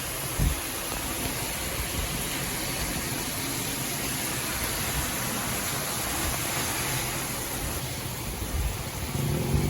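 Steady hiss of heavy thunderstorm rain. Near the end a low, steady-pitched hum comes in.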